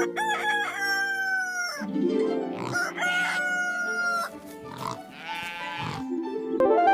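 Rooster crowing twice, each a long held call that rises at the start and sags slightly at the end, followed by a shorter call, over background music.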